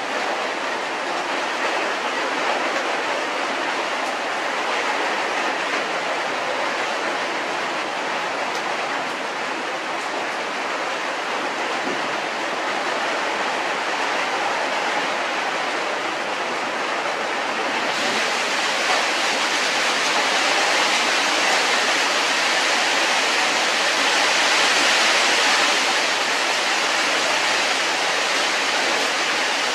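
Steady rushing hiss with no rhythm or pitch; its upper range turns abruptly brighter a little over halfway through.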